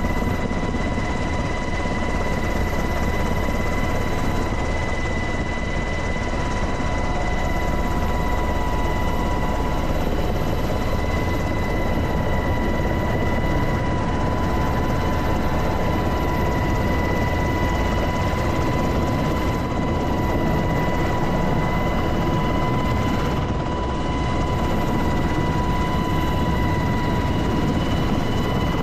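Helicopter heard from inside its open-door cabin: a steady rotor and engine din with a constant high whine over a deep rumble.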